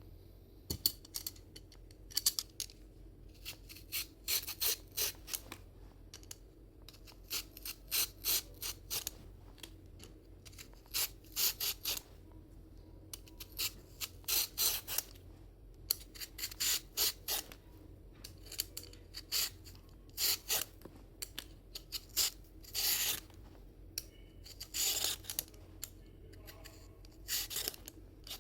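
Quick, repeated scraping strokes come in short runs of several, with brief pauses between the runs, like a blade or rasp being drawn over a hard surface. A faint steady hum sits underneath.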